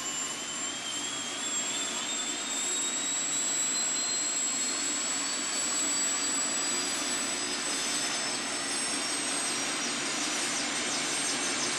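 Helicopter turbine engine spooling up: a whine rising steadily in pitch over a steady high hiss and tone. A fast, even pulsing of the turning rotor joins in during the last few seconds.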